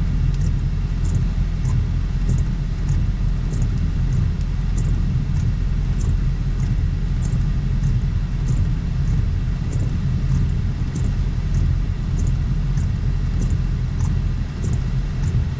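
Roush Mustang's engine idling steadily, heard inside the cabin as a low rumble. A faint, regular high tick sounds about every half second throughout.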